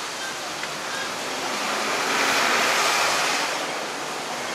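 Steady rushing outdoor city noise from traffic on the roads below the footbridge, mixed with wind on the microphone, swelling for a second or so near the middle.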